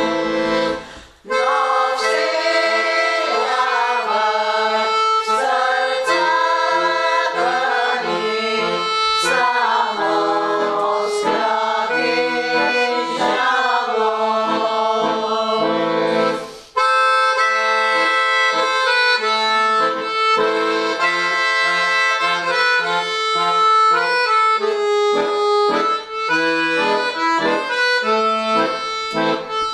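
Instrumental folk-style background music: a sustained, wavering melody over a stepping bass-and-chord accompaniment. It breaks off briefly about a second in and again just past the middle.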